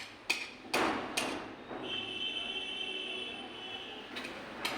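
Sharp clicks and light knocks from handling a smartphone and its charging cable on a work surface. A steady high tone sounds for about two seconds in the middle, and two more knocks come near the end.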